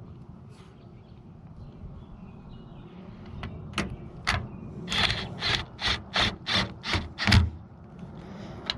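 Hand ratchet working a fastener on a car's door handle: a run of about nine sharp clicks, a little over two a second, starting about four seconds in and stopping a second before the end.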